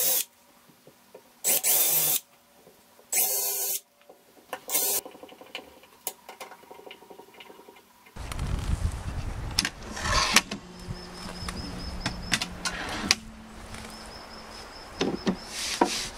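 Cordless drill driving screws in three short bursts, fastening rubber feet to a plywood cabinet bottom. Then outdoor background with a few knocks from wooden table panels being handled, and a high pulsing call in the background.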